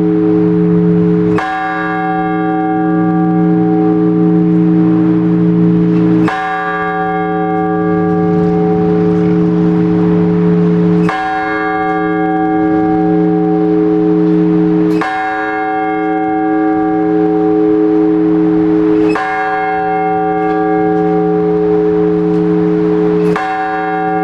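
A large Orthodox church bell struck slowly and evenly, six strokes about four to five seconds apart, each one humming on until the next. This is the blagovest, the measured single-bell ringing that calls people to the all-night vigil service.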